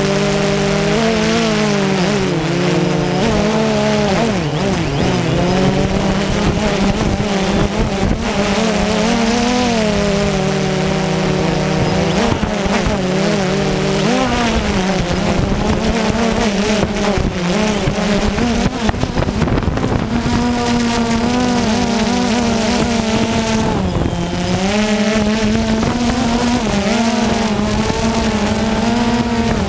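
Quadcopter drone's propellers and motors buzzing steadily, the pitch wavering up and down as the motors change speed while the drone descends.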